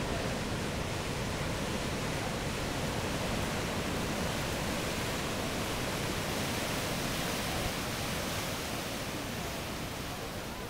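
Steady rushing hiss of ocean surf breaking into whitewater, easing slightly near the end.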